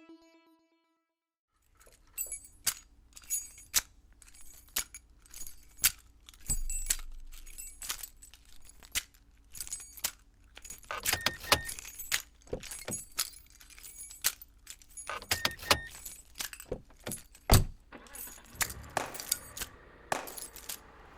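An irregular run of sharp clicks and clinks from small hard objects, starting about a second and a half in, over a faint steady low hum.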